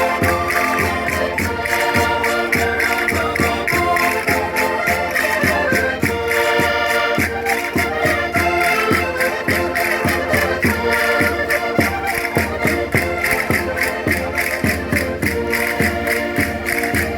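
Concertinas playing a lively folk dance tune in held chords, over a steady, even beat.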